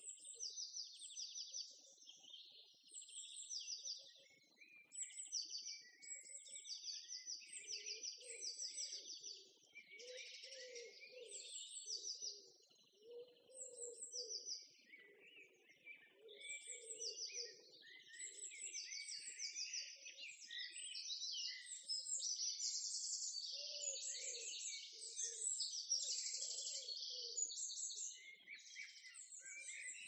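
Several small songbirds singing at once, a dense chorus of quick, repeated high chirps and trills that overlap throughout. A fainter, lower sound comes and goes beneath them.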